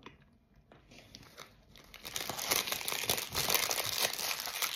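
Snack wrapper being crinkled and handled, starting about two seconds in and continuing as a dense crackling.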